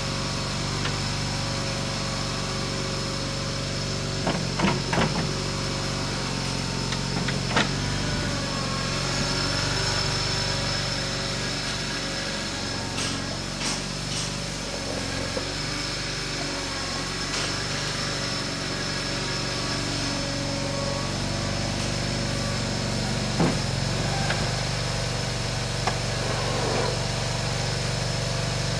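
Bobcat 440B skid-steer loader's small engine running steadily as the machine drives and works its bucket, with a steady high whine over it and the pitch shifting in the middle. A few sharp clanks are heard, about five seconds in, near eight seconds and again later.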